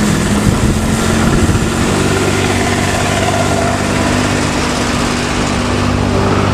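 Vehicle engine running at a steady speed, a low drone that settles on one even pitch about two seconds in.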